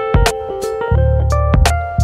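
Background music: a melody over strong bass notes, with sharp drum hits.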